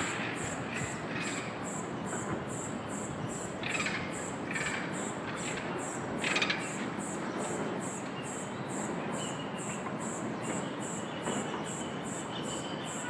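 Insects calling in a high-pitched, steady pulsing chorus, about three pulses a second. A few short, sharper chirps stand out around four and six seconds in.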